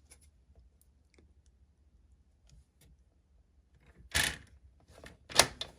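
Quiet handling of paper and a paper trimmer: a few faint ticks, then a short scraping rustle about four seconds in and another sharp one near the end as the trimmer and cardstock are moved into place.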